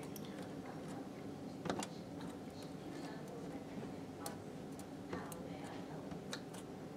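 Faint, irregular small clicks and ticks of a soldering iron and fingers working a resistor's wire leads into a splice, the sharpest near two seconds in, over a low steady background hum.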